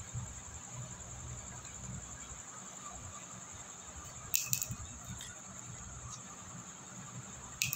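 Crickets chirping steadily, a continuous high-pitched trill. A few sharp clicks or clinks come about four and a half seconds in and again near the end.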